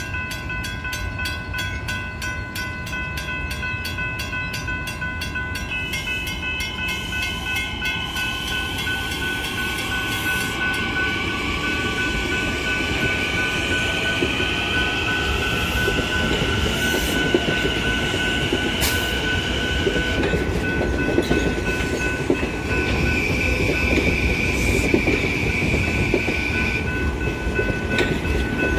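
Long Island Rail Road electric multiple-unit train crossing a grade crossing. Its wheels rumble and clack over the rails while the motors give a whine that rises in pitch as it gathers speed. A crossing warning bell rings rapidly through the first several seconds.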